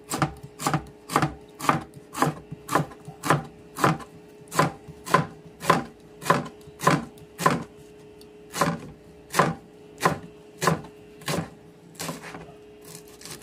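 Kitchen knife slicing banana heart on a plastic cutting board, the blade knocking the board in a steady rhythm of about two strokes a second. The strokes thin out near the end.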